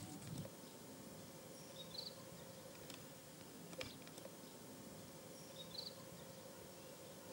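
Faint outdoor ambience: a steady low hum and hiss, with two short high chirps, one about two seconds in and another nearly six seconds in.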